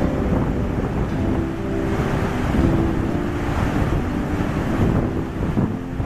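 Steady rushing noise, heaviest in the low range, with faint held tones coming and going.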